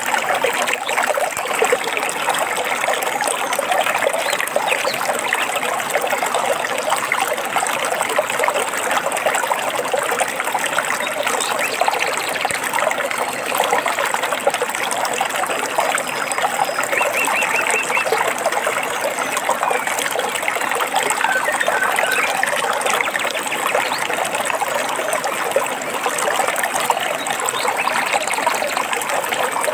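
Small stream trickling and splashing steadily over rocks. A bird gives a short trill about halfway through, and a few brief chirps follow soon after.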